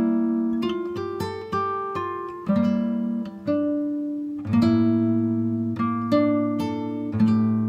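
Background music: a plucked acoustic guitar playing a slow melody with chords, each note struck sharply and left to ring out.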